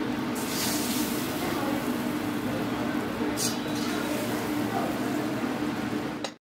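Eatery room ambience: indistinct background voices over a steady hum, with two brief hisses, cutting off abruptly near the end.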